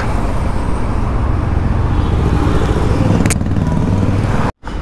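Motorcycle engine running with road and traffic noise while riding, picked up on a clip-on mic on a GoPro. A single sharp click about three seconds in, and the sound drops out for an instant near the end.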